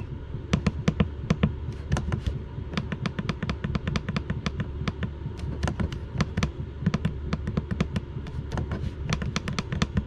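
Rapid, irregular clicks of the buttons on a Chinese diesel heater's control panel, pressed over and over to scroll a digit while entering the settings password, over a low steady hum.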